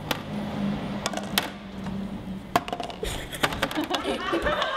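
A bottle and a cup handled on a plastic serving tray: a few sharp, scattered clicks and knocks over a low steady hum.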